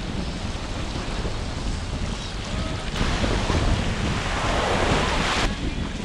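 Surf washing on the shore with wind buffeting the microphone, a steady rushing rumble. About halfway in, a louder hiss of surf rises, then cuts off suddenly near the end.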